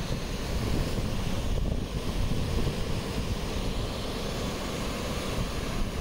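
Wind buffeting the microphone, a steady rush with a fluctuating low rumble.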